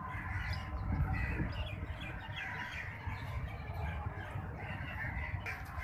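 Scattered bird chirps over a steady low rumble of outdoor background noise.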